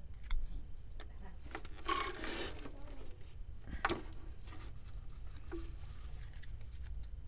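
Close handling noise: a few sharp clicks and knocks, with a longer rubbing, rustling stretch about two seconds in and a sharper knock near four seconds.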